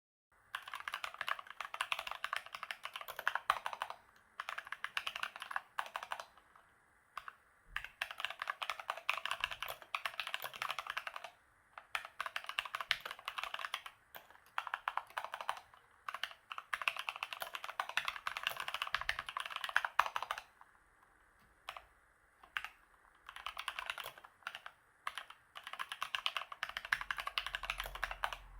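Fast typing on a Keychron K2 mechanical keyboard: rapid runs of key clicks lasting a few seconds each, broken by short pauses.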